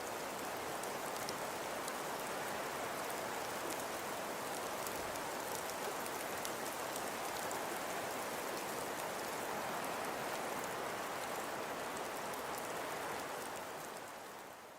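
Steady rain falling, a dense hiss of drops with fine patter on top, fading out at the end.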